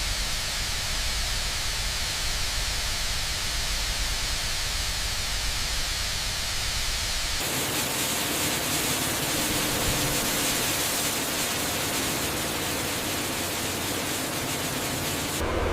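Steady machinery noise, a loud even hiss. A little under halfway through it cuts abruptly to a different, rougher noise.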